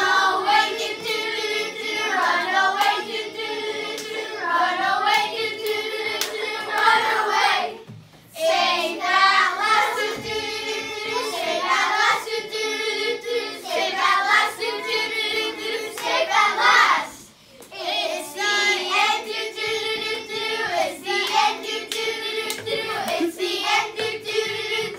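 Children singing a song together, in three phrases broken by short pauses about 8 and 17 seconds in.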